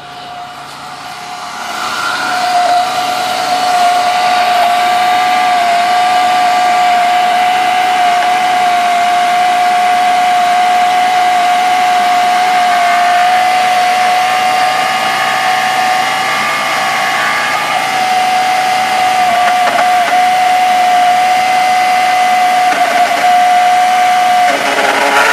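Car engine running with a loud, steady, high-pitched grinding whine from the engine, building over the first few seconds and then holding, before it changes near the end.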